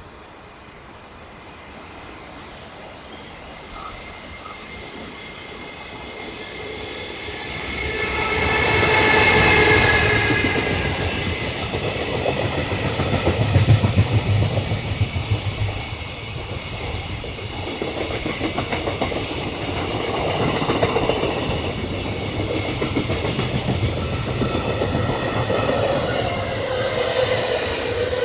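Train approaching and running through the station, wheels clattering over the rail joints, with a whining tone; the whine falls in pitch near the end.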